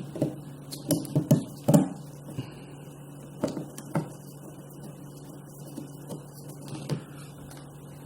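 Irregular clicks and knocks of the Nest Protect's plastic mounting plate being handled and fitted against the ceiling electrical box, with a quick cluster about a second in and a few single clicks after, over a steady low hum.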